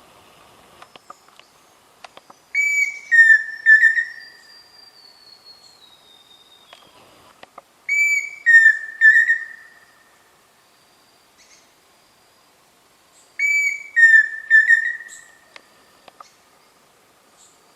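Pheasant cuckoo singing: three whistled phrases a few seconds apart, each a higher opening note followed by several slightly lower notes.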